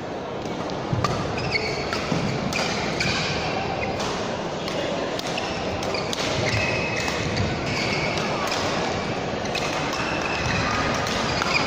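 Badminton rally in a sports hall: repeated sharp racket strikes on the shuttlecock, a few every couple of seconds, with short squeaks of court shoes on the floor and faint voices in the hall.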